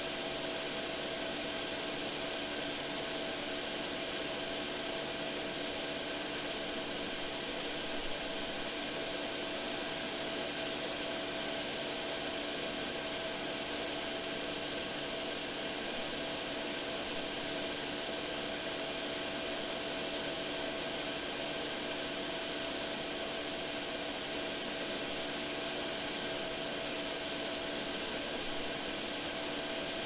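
12 V diesel air heater running: a steady whir of its fans with a few constant tones and a faint short high blip about every ten seconds. Unburnt diesel is pouring from its exhaust, which the owner takes for a faulty heater.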